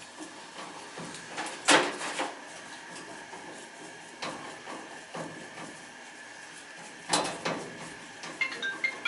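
Clanks and knocks of metal parts and tools being handled: a loud one about two seconds in, others around four, five and seven seconds in. Near the end a mobile phone starts ringing with a short melody of beeps.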